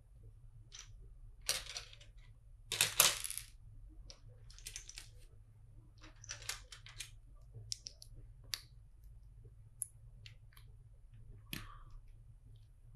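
Plastic LEGO bricks clicking and clattering as pieces are handled and pressed together. The loudest is a short rattle of pieces about three seconds in, followed by scattered single clicks.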